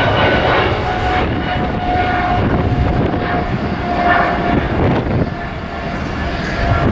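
Boeing 777-300ER jet engines at climb thrust as the airliner climbs out overhead: a loud, steady rushing rumble with a thin whine that fades in and out.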